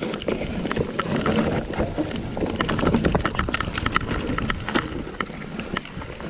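Mountain bike clattering over a rough dirt trail: irregular clicks and knocks from the bike over a steady rush of tyre and wind noise on the microphone.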